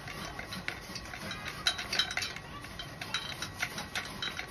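Hand pruning saw cutting a shallow undercut into the underside of a thick branch in a run of short strokes. The small notch is made first so that the bark does not tear away when the branch is cut through from above.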